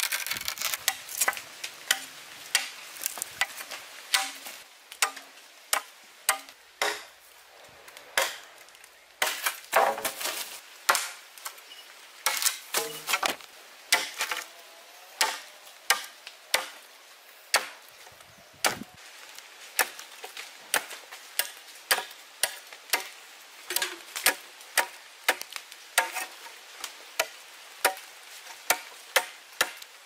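Machete blade chopping into bamboo poles, trimming and pointing the ends of bamboo stakes: sharp, woody strikes repeated at about one or two a second, with short pauses between runs of blows.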